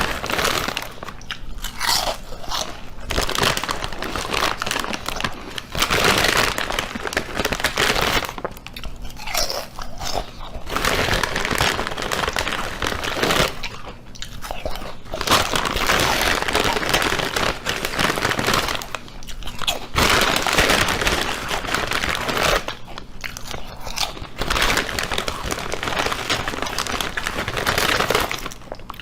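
Loud crunching noise in long stretches of several seconds, broken by short pauses.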